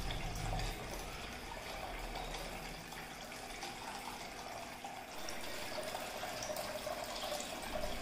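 Water trickling and splashing steadily from the spouts of a small cement tiered fountain into its bowls and basin.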